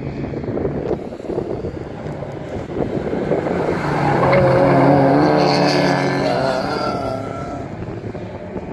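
Several 1600-class rallycross cars, among them Mazda MX-5 roadsters, pass close at racing speed. Their engine notes build to the loudest point about five seconds in, then fall slightly in pitch and fade as the pack pulls away.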